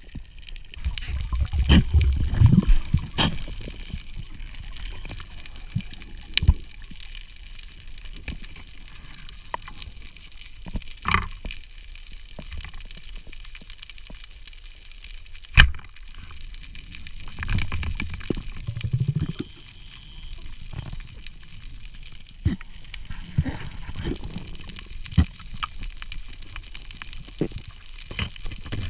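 Underwater sound heard through a diver's camera: water gurgling and sloshing with low rumbling swells. Scattered sharp clicks and knocks come through, the loudest a single sharp crack about halfway through.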